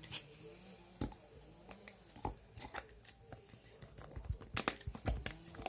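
Sticky, clear glitter slime being stretched and squeezed by hand: scattered small clicks and crackles, more of them near the end.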